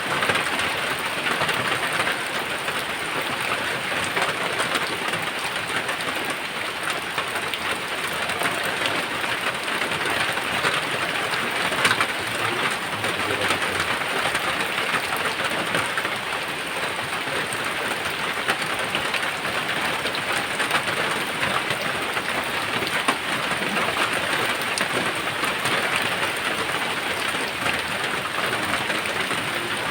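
Steady heavy rain pattering on surfaces, with thunder rumbling in the storm and one sharper, louder spike about halfway through.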